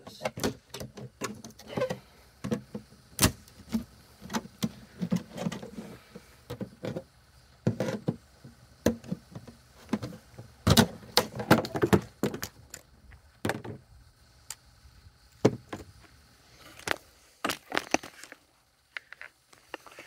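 Pliers prying at the metal clasps of a plywood shipping crate: irregular metal clicks, clanks and knocks, with a few louder cracks about three seconds in and again around eleven seconds.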